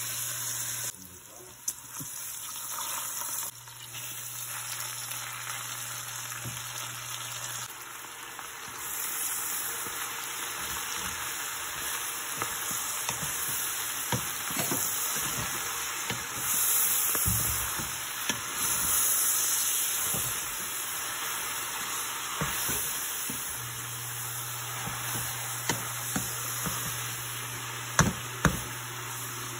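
Chopped onions and meat sizzling in a stainless steel pot, then collard greens being stirred in with a wooden spoon, the spoon scraping and tapping against the pot, with two sharp knocks near the end.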